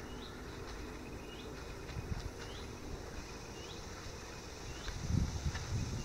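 Faint summer outdoor ambience of insects such as crickets buzzing steadily in the grass, with a short rising chirp repeated about once a second. A low rumble comes in near the end.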